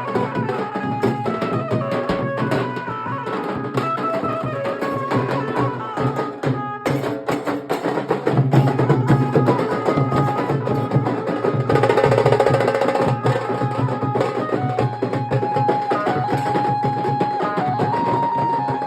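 Nashik dhol band playing: dhol drums beaten in a dense, driving rhythm, with an amplified benjo carrying a melody of held notes that step up and down over the drumming. The drumming thins briefly about a third of the way in, then comes back louder.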